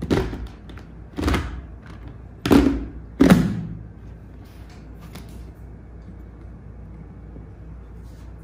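Visor of a Shoei X-Spirit 3 motorcycle helmet being flipped open and snapped shut by hand, its plastic shield clacking against its detents and the shell: four sharp clacks in about three and a half seconds, then a few faint clicks.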